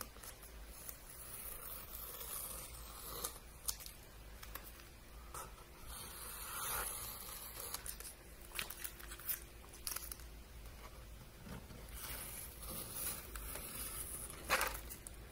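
Washi tape being peeled off sketchbook paper in several separate pulls, each a dry ripping rasp with small clicks.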